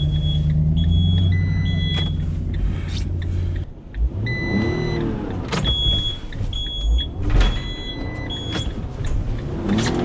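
Engine of a delivery van stuck in snow, running steadily, then revved up and down twice as the driver tries to drive it free. The van's warning beeper sounds in two runs of quick, evenly spaced beeps, and there is a single thump.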